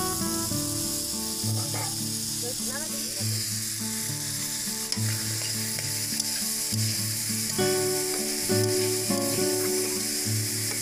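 Rice sizzling as it fries in an iron karahi, poured in from a steel bowl near the start and then stirred and scraped with a metal spatula.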